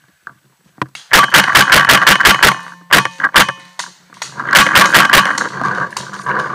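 Paintball marker firing fast strings of shots: a rapid burst of about nine shots about a second in, two single shots, then another quick burst, with a steady hum under the firing.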